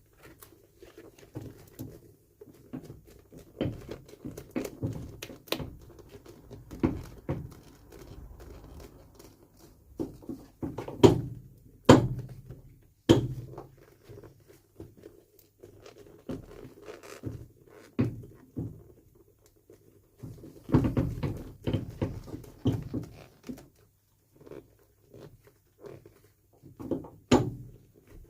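Irregular knocks and thuds from a leather sole being worked onto a shoe, with a few louder knocks about eleven to thirteen seconds in.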